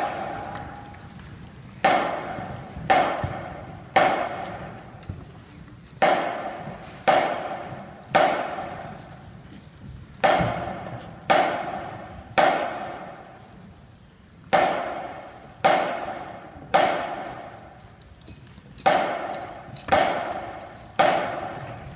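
Marching band brass and percussion playing short, loud accented chords in groups of three, about a second apart with a rest between groups; each chord rings on in the gymnasium's echo.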